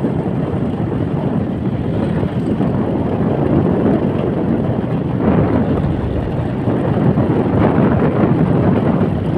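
Wind rushing over the microphone of a fixed-gear bike rider speeding downhill, a steady loud rush that swells about five seconds in and again near the end.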